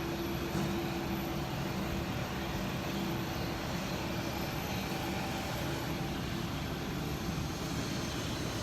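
Passenger jet's steady engine and air noise, with a faint steady hum that fades out about halfway through.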